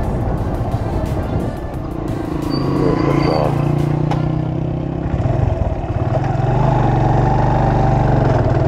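Motorcycle engine running steadily at road speed, with wind on the microphone, under background music.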